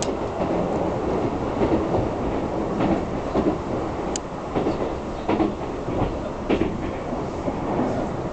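Keisei Skyliner express train running at speed, heard from inside the carriage: a steady rolling rumble with repeated clacks of the wheels over the track, and a brief high squeak about four seconds in.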